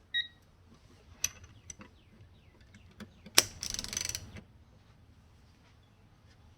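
A 1/4" hand ratchet being handled and worked: scattered clicks and knocks, a sharp click about three seconds in, then about a second of rapid pawl clicking as the ratchet is turned. A short high ping sounds just after the start.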